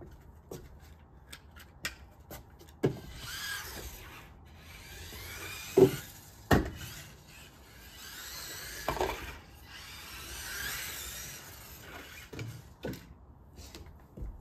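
Losi Micro-B RC buggy driving: its small electric motor and gears whine, rising and falling with the throttle, starting about three seconds in and dying away near the end. Several sharp knocks as the car hits things, the loudest a little before halfway.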